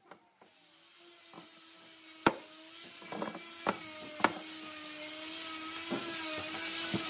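A length of hardwood timber knocking several times against a miter saw's metal table and fence as it is slid and lined up for the next cut. A steady machine hum in the background grows slowly louder throughout.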